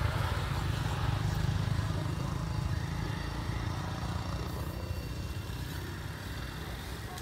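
Steady low mechanical rumble that slowly fades.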